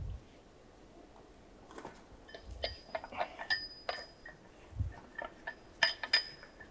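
Metal rings and bows of an old wooden ox yoke clinking and rattling as the yoke is picked up and handled, with a few dull knocks. The clinks come in clusters from about two seconds in.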